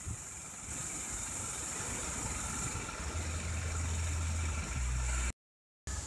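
Steady rush of a tall, thin waterfall falling down a vegetated cliff. A low rumble joins about halfway through, and the sound cuts out briefly near the end.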